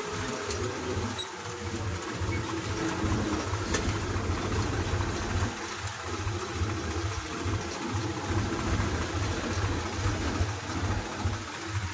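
Tractor's diesel engine running steadily as it drives along a road, heard from the driver's seat, with a low pulsing hum under a constant rushing noise.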